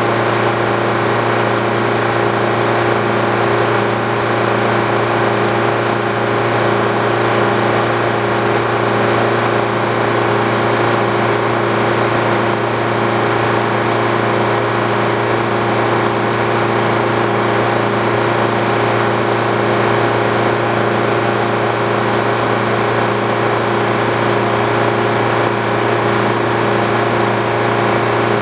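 Old Frick sawmill's drive and saw running at a steady speed: an even, unbroken machine hum with several steady tones.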